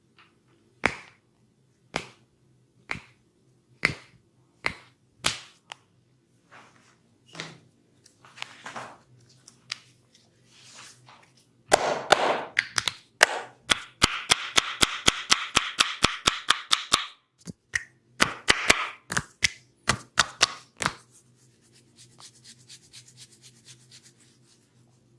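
Hands slapping bare skin during a massage: single sharp slaps about once a second, then a fast run of slapping strokes, about four a second, for roughly ten seconds. Faint rubbing of hands on skin near the end.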